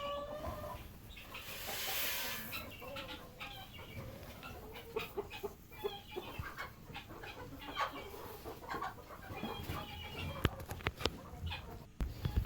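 Chickens clucking on and off, with a brief rustle about two seconds in and a few sharp knocks near the end.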